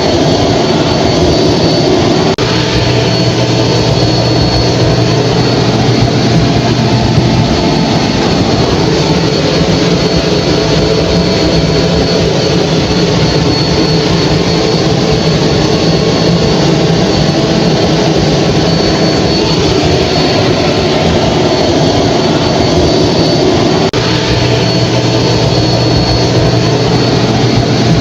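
Hair dryer running steadily: a constant rush of blown air with a thin high whine, and a low hum that comes in twice.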